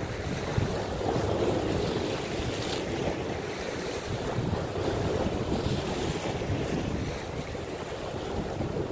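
Sea waves washing and breaking against shoreline rocks in a strong wind, with wind buffeting the microphone: a steady rush of surf that swells and eases a little.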